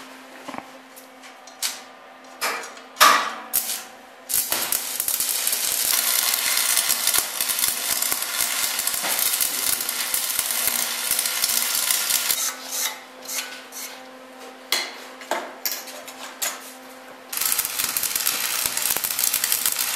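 Shielded metal arc (stick) welding: a few short crackling strikes as the arc is started, then a steady crackling hiss of the burning electrode. It breaks into separate sputters for a few seconds in the middle and runs steady again near the end.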